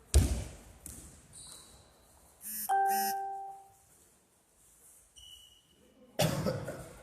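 A basketball slams on the hall floor, with a lighter bounce about a second later, then a quick two-note electronic chime rings out midway, followed by another loud thud near the end.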